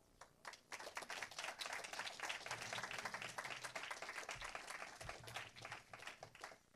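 A congregation applauding: many hands clapping together, starting about half a second in and dying away near the end.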